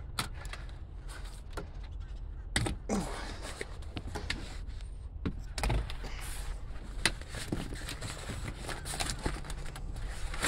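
Snap fasteners on a black vinyl boat helm cover being pulled open and the cover dragged back, giving scattered sharp clicks and knocks with vinyl rustling, over a steady low rumble.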